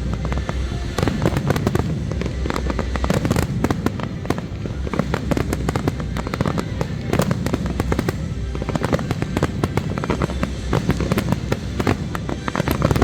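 Fireworks display: a dense, continuous run of sharp bangs and crackles, many in quick succession, over a low booming rumble.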